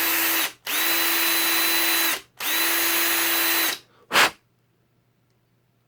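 Power drill with a 3/16-inch bit drilling out the rivet on a diecast Hot Wheels car's base, run in three steady bursts of about one to one and a half seconds each with short pauses between, then a quick blip about four seconds in. The stop-and-start trigger work keeps the bit from cutting through too far.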